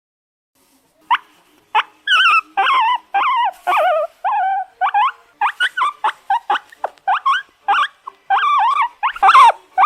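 An animal giving a rapid run of high, whining yelps that slide up and down in pitch, starting about a second in.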